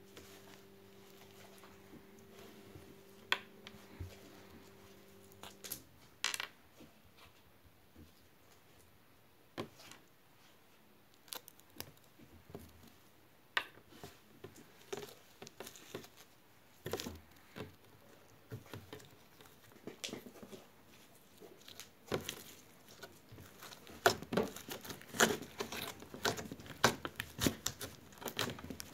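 Hands squishing and pressing soft slime, making sticky popping clicks. The clicks are scattered at first and come thick and fast over the last five seconds. A steady low hum runs under the first six seconds and cuts off suddenly.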